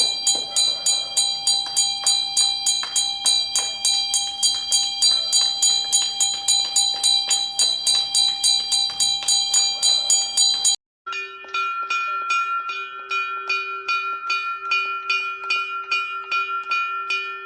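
A metal hand bell rung rapidly and steadily, about four to five strokes a second. About 11 s in there is a brief break, then a second, lower-pitched bell rung a little more slowly, about three strokes a second.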